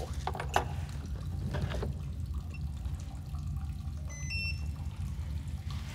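Trickling water with a steady low rumble and a few small handling clicks in the first two seconds. About four seconds in, a portable spectrophotometer gives a short two-note electronic beep.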